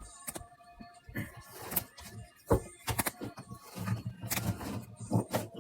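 Hands handling trading card packs and cards: irregular rustling and crinkling of wrappers with sharp clicks and taps.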